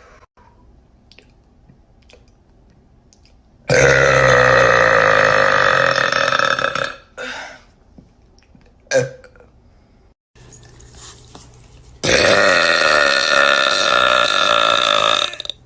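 A woman burping: two long, loud burps, each lasting about three seconds, with two short sounds between them.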